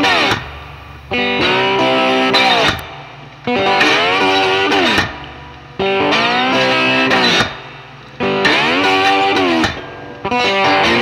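Background music led by electric guitar, in loud phrases that repeat about every two and a half seconds, each ending in a falling slide.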